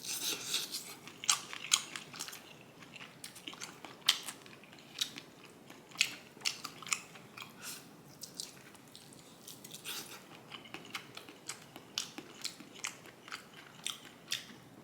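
Crunching bites and chewing of crispy fried chicken wings, a run of irregular sharp crackles.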